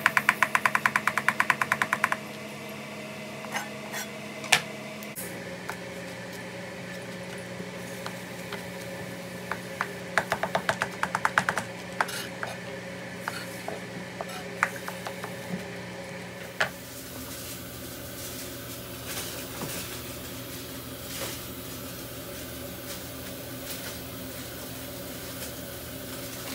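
Chef's knife chopping rapidly on a plastic cutting board, quick runs of about ten cuts a second in the first two seconds and again around ten to twelve seconds in, with a few single strikes between. A steady low hum runs underneath.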